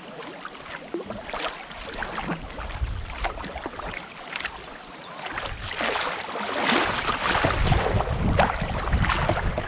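Kayak paddle strokes dipping and splashing in moving river water, with rippling water throughout. From about six seconds in the water noise grows louder and wind buffets the microphone with a low rumble.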